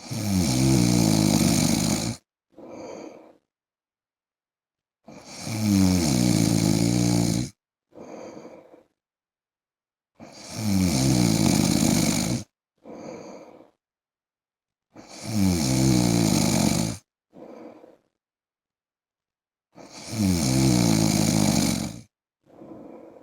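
A man snoring loudly: five long snores, about one every five seconds, each followed by a short, softer sound, with silence between.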